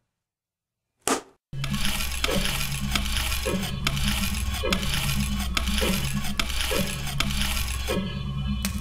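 Added soundtrack: after a brief click, a low sustained drone of bass notes sets in, with a metallic clink sounding about once a second over it.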